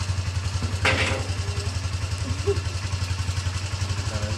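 Motorcycle engine idling with a steady, rapid, even pulse. About a second in, one short, louder sharp sound rises over it.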